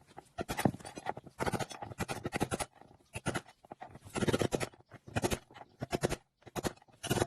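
Short, irregular bursts of metal scraping and rattling as a pipe sleeve is worked against the stuck outer race of a front-loading washing machine's drum bearing.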